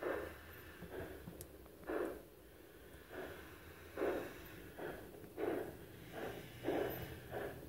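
LGB G-scale Union Pacific Mikado model steam locomotive's sound unit chuffing as the engine runs. The soft exhaust puffs come about once a second and quicken in the second half.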